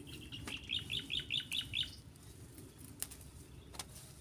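A small bird chirping: a quick run of about eight short, falling chirps lasting under two seconds. Two sharp clicks follow later.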